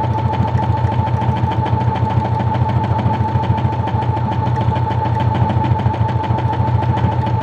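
Brother XR9550 computerized sewing machine running at a steady speed, its motor whining evenly under a rapid, even ticking of the needle. It is stitching its built-in meandering quilting stitch on its own, with the fabric held still.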